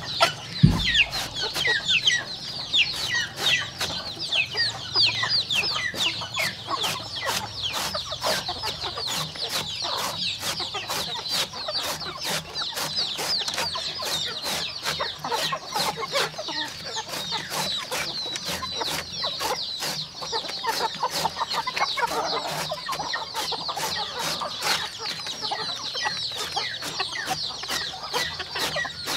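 A brood of young chicks peeping nonstop, many short high falling peeps overlapping. There is a single thump just under a second in.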